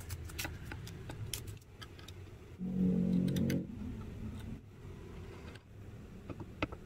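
Light metallic clicks and rattles from hand-assembling the aluminium build arm on a resin printer's Z-axis rail and handling an Allen key against the metal parts. About three seconds in, a louder low hum lasts for about a second.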